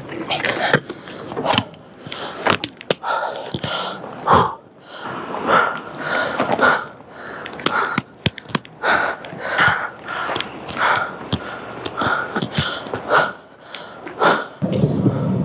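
Heavy, irregular breathing close to the microphone, with short sharp clicks between the breaths.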